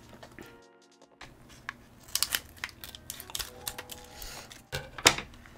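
Plastic packaging being crinkled and torn open by hand: a run of irregular crackles, with one sharp, loud crackle near the end.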